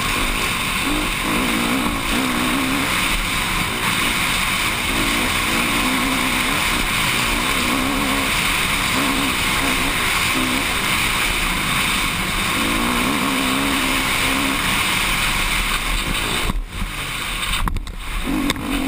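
Dirt bike engine running at race speed, its note rising and falling with the throttle, under heavy wind rush on a helmet camera. The sound briefly drops out twice near the end.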